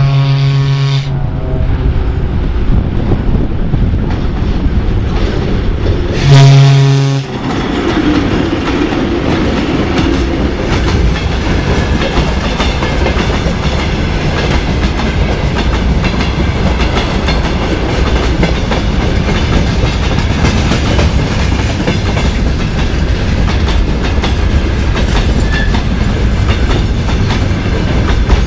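Loaded freight wagons rolling past close by: a steady heavy rumble with wheels clattering over the rail joints. A locomotive horn sounds two short blasts, one at the very start and another about six seconds in.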